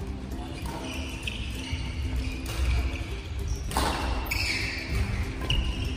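Badminton players' shoes squeaking and stepping on a wooden gym floor, with a sharp smack about four seconds in, under faint background music.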